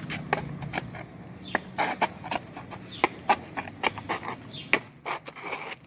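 A walking stick and footsteps tapping on a paved path: a run of irregular sharp taps and clicks.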